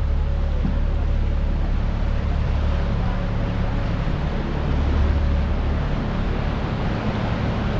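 Open canal tour boat's motor running steadily with a deep hum, under an even hiss of water wash and moving air.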